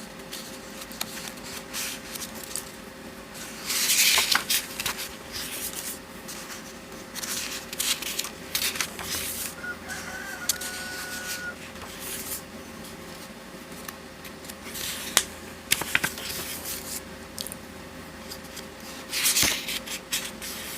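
Pages of a paperback coloring book being turned and handled, with irregular paper rustles and two louder page-turn swishes, one about four seconds in and one near the end. A faint steady hum lies beneath.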